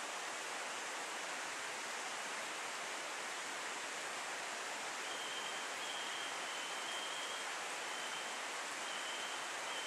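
Steady rushing of floodwater, an even hiss without distinct events. A faint thin high tone comes and goes in the second half.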